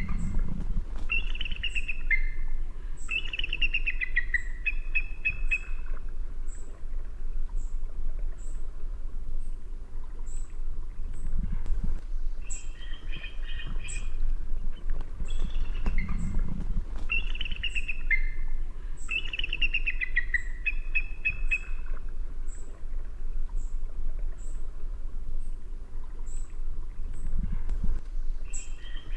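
Eagle calling: bouts of rapid, high piping notes that fall in pitch, separated by pauses of several seconds, over a steady low background rumble.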